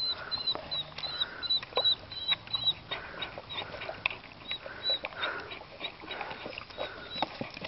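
Chow chow puppy nosing and tipping over a bowl on grass: irregular knocks and scrapes of the bowl, with small puppy noises. A quick run of short high squeaks comes in the first three seconds.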